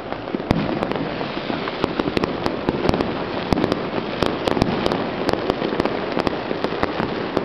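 Fireworks going off in many places at once: a continuous crackle with frequent sharp pops and bangs, several a second and irregularly spaced.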